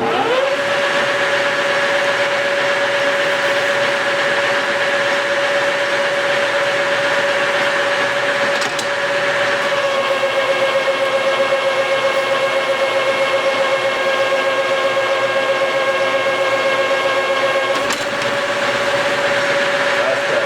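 Lathe spinning up and running with a steady whine from its drive gearing. From about ten seconds in until about eighteen the tone changes, with higher tones added and a slight waver, as the lathe takes a roughing cut on the shaft.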